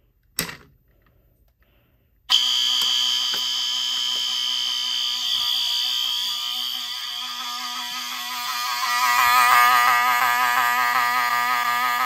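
A click as the fire alarm pull station is operated, then about two seconds later several fire alarm horns start sounding together. It is a loud, steady, unbroken blare with a strong high tone, and it grows louder about nine seconds in.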